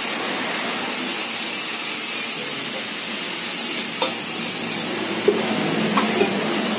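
Welding on car exhaust piping: a crackling sizzle that comes in spells of a second or so, stopping and restarting several times, with a few sharp ticks.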